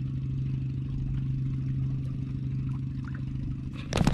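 A small engine running steadily with an even, low hum. A sharp, sudden sound comes right at the end.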